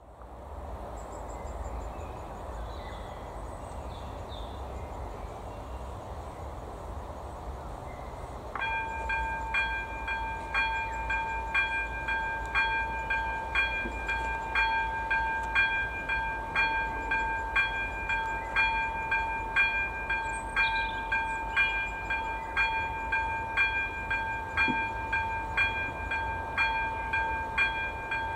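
Level-crossing warning bell, an AŽD ZV02 electronic bell, switching on suddenly about eight and a half seconds in and ringing on with a ding about once a second over a steady tone, signalling that a train is approaching.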